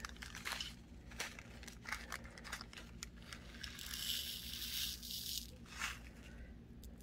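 Plastic zip-top bead bags crinkling and rustling faintly as they are handled, with scattered light clicks and a denser stretch of crinkling about four to five and a half seconds in.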